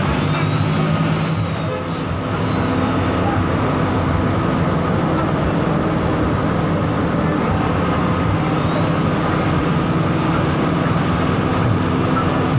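A bus running along the road, heard from inside the cabin: a steady engine drone with road and rolling noise. A faint high whine swells and fades twice.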